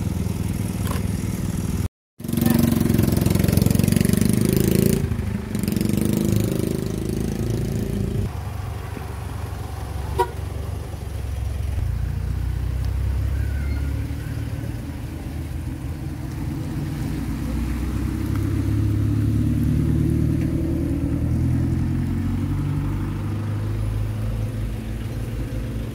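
Off-road 4x4 vehicle engines running: a steady low drone, louder for several seconds after a break about two seconds in, then settling lower.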